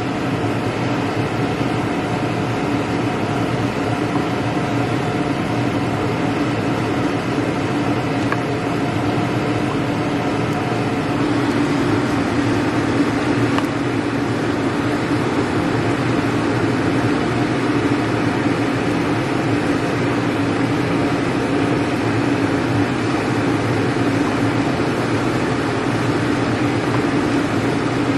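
A fan's steady hum, even and unchanging, with a wooden spatula stirring thick cream soup in a metal pot beneath it.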